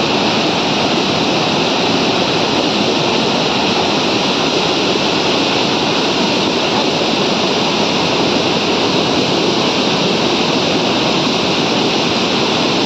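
Loud, steady rush of a large waterfall: white water crashing over boulders into a rocky stream.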